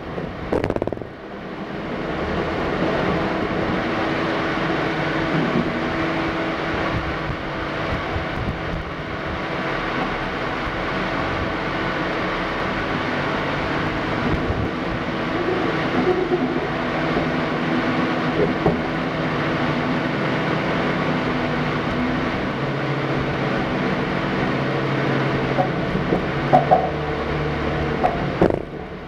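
Nissan Xterra's engine running steadily under load as it crawls up a rock wall, with a few sharp knocks near the end.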